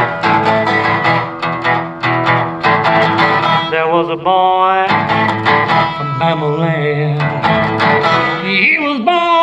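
Resonator guitar playing a blues intro: quick picked notes at first, then held notes that waver and bend from about four seconds in, with a wordless sung note joining around the same time.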